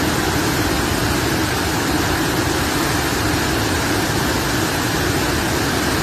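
Muddy flash-flood water rushing and churning down a waterfall stream in full spate: a loud, steady rush of water that holds even throughout.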